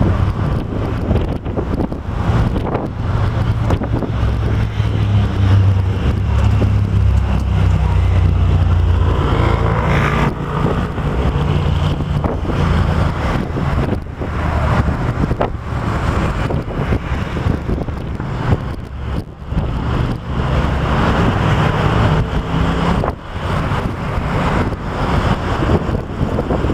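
A moving open-top tour bus: its engine rumbles low beneath wind buffeting the microphone on the open upper deck.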